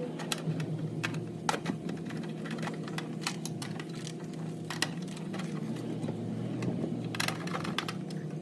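Scattered sharp clicks and metallic taps from handling the wiring and tools while fitting a replacement run capacitor, over a steady low machine hum.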